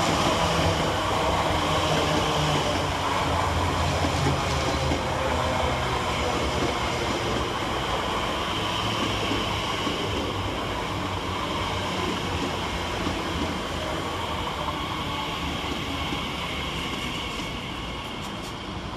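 Class 345 electric multiple unit running into the station and slowing. Its steady running noise and low hum fade gradually.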